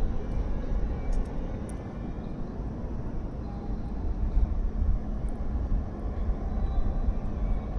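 Wind buffeting the microphone: a deep, gusting rumble with a steady hiss over it.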